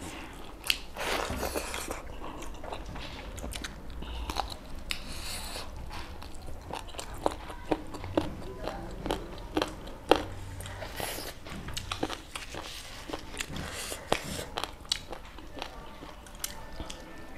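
Close-miked chewing and biting of food, with many short, scattered crunches and mouth clicks, from people eating dhido, mutton and rice by hand.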